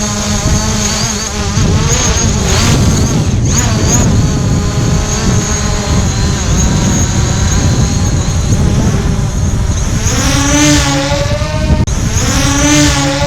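Multirotor drone's propellers buzzing in flight, several tones whose pitch wavers and swings up and down as the motors change speed, most strongly near the end. A heavy low rumble runs underneath.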